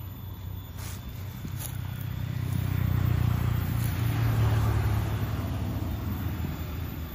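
A motor vehicle's engine rumble that swells to a peak about halfway through and then fades, as a vehicle passes by.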